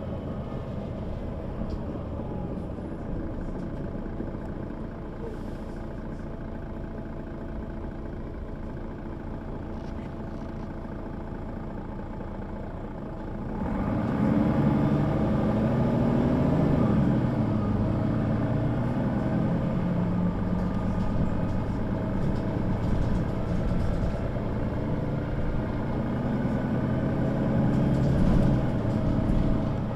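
Mercedes-Benz O 530 G Citaro articulated bus engine running steadily at low revs. A little under halfway through it gets clearly louder and its pitch rises and falls as the bus pulls away and accelerates.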